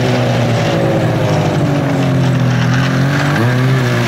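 Ski-Doo Rev snowmobile's two-stroke engine running at low speed, its pitch easing slowly down, then a few quick throttle blips near the end.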